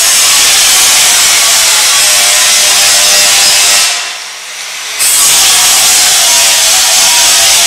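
Power cutting tool running and cutting. It is loud and steady, eases off briefly about four seconds in, then cuts again.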